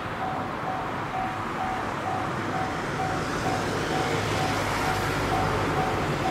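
Japanese railway level-crossing warning bell ringing, an even electronic ding about twice a second, over the rumble of an approaching electric train that grows louder through the second half.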